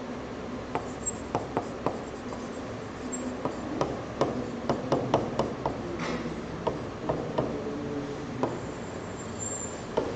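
Stylus tapping and clicking on a tablet screen during handwriting: a run of sharp, irregular taps, thickest about four to six seconds in, over a steady background hum.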